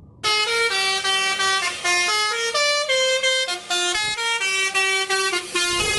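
Musical multi-tone horn playing a quick tune: a run of short notes that step up and down in pitch several times a second, starting a fraction of a second in. It is given as the horn of a blue dump truck.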